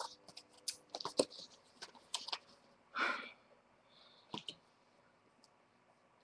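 Hands handling paper and craft materials at a table: scattered light clicks and taps, a short rustle about three seconds in, a few more clicks, then it goes quiet.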